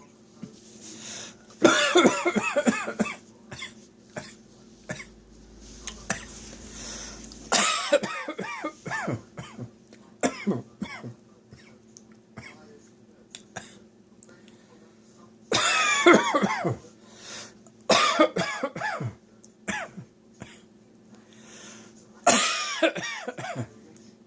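A person coughing in fits from a tickly throat: about five bouts of repeated coughs, each lasting a second or so, with smaller single coughs between.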